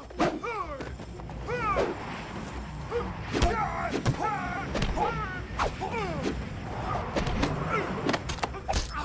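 Hand-to-hand kung fu fight: a rapid run of punch and block impact hits mixed with short, sharp shouted cries from the fighters, many of them falling in pitch.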